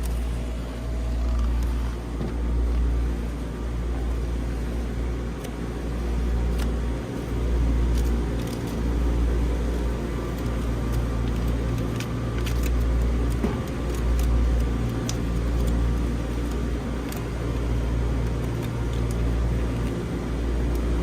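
Steady mechanical hum with a fluctuating low rumble, from equipment running around the chiller, with a few faint clicks and crinkles as foil tape is pressed over the top of the new fan motor.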